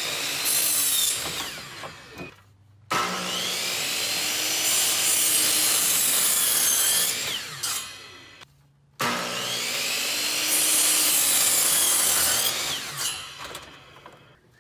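Power miter saw cutting new soffit board in three runs. The second and third start abruptly about three and nine seconds in, and each winds down after the cut.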